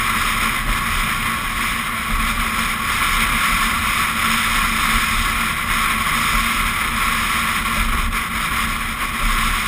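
Steady wind rush and road noise from a camera mounted on the outside of a vehicle driving at speed, with low, unsteady wind buffeting on the microphone.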